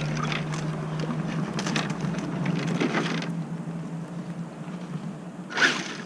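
Small electric motor of a Redcat Volcano EPX RC truck running just after being dunked in water, with a steady hum and a rushing hiss that drops away a little past three seconds in. A brief sharp noise comes near the end.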